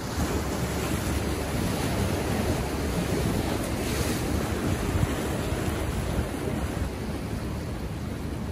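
Ocean surf washing over and around rocks along the shore, a steady rush that swells briefly about four seconds in, with wind buffeting the microphone.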